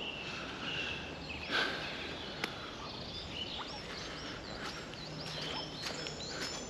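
Several wild birds singing and calling at once, a mix of short chirps, whistled notes and quick upward and downward glides, over a soft outdoor background hiss. A single sharp tick sounds about two and a half seconds in.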